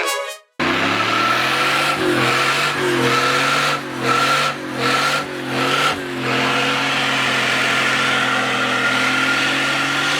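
A car engine running steadily, blipped several times in quick succession around the middle of the clip, with a steady high whine over it.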